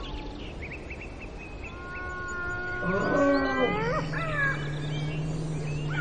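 Wild animal calls, bird-like: a run of short chirps, then several long whistling calls that glide upward and overlap. A low steady hum comes in about three and a half seconds in.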